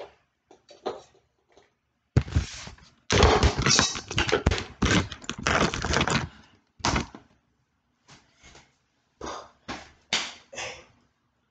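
Handling noise from a phone camera being moved and set in place: a string of knocks, thumps and rubbing right on the microphone, densest in the middle, then a few short bumps near the end.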